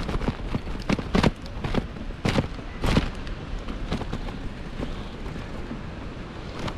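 Wind buffeting the microphone of a bike-mounted camera, with a run of sharp knocks and rattles in the first five seconds as the bicycle jolts over rough dirt and grass.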